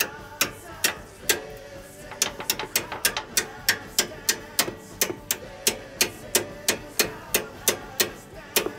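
A hammer banging repeatedly on a steel suspension bolt, each blow ringing briefly. A few spaced blows are followed from about two seconds in by a steady run of about three a second. The bolt is being knocked loose from the upper control arm mount because a rusted washer has seized on it.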